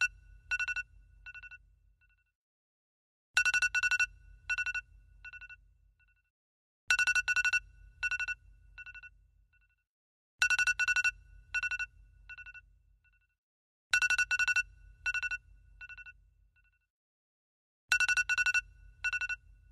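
iPhone alarm tone: a burst of rapid electronic beeps that fades out, repeating about every three and a half seconds.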